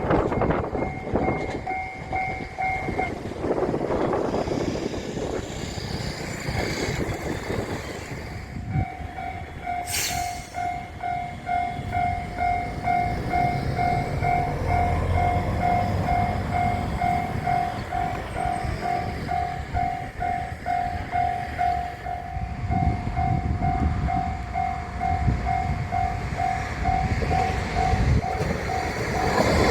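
Level crossing warning bell ringing in an even electronic clang of about two strokes a second. It stops a few seconds in and starts again about nine seconds in. Underneath is the rumble of a train on the track.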